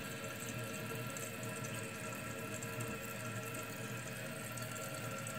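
Kohler Wellworth toilet tank refilling: water runs in steadily, with no break.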